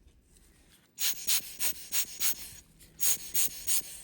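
Quick puffs of air blown to clear dust from the watch case, starting about a second in: a run of about five, a brief pause, then about four more, roughly three a second.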